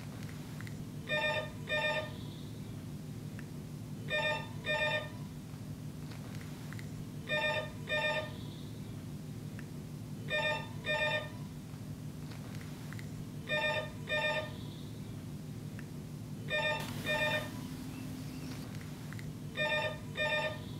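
Landline telephone ringing with a British-style double ring, short pairs of rings repeating about every three seconds, seven pairs in all, over a low steady hum.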